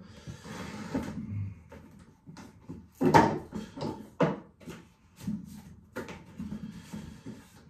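Handling noises: rustling followed by a run of sharp clicks and knocks, the loudest about three to four seconds in, as things are moved about to bring out a straight razor.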